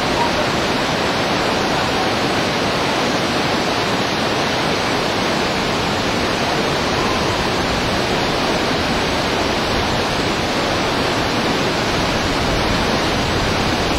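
Rushing river whitewater, loud and steady.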